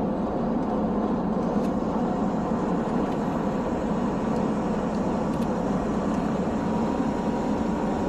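Steady engine and road noise inside a semi-truck's cab at highway speed.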